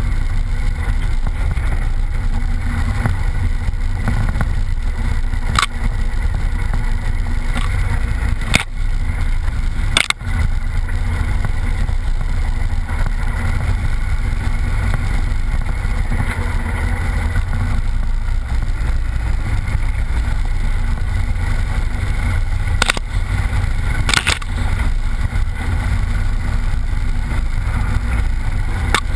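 Off-road vehicle's engine running steadily while driving over a rough, wet dirt trail, with a low rumble throughout. A few sharp knocks come from bumps or stones: one around 6 s, two around 9 to 10 s, and two near 23 to 24 s.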